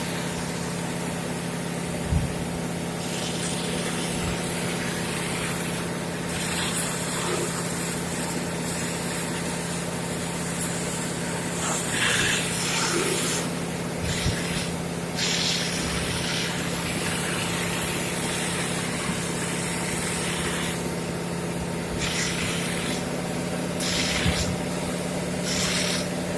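Fire pump running steadily, driving water through hydroelevators to draw water, with bursts of hissing spray on and off.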